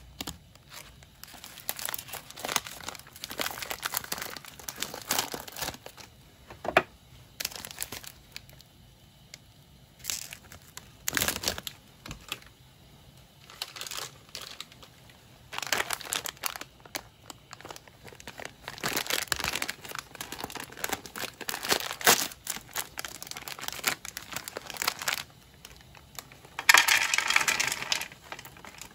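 Crinkling of snack packaging handled in short, irregular bursts: a foil-lined granola bar wrapper and a plastic trail-mix bag. The longest, loudest burst comes near the end as the trail-mix bag is handled.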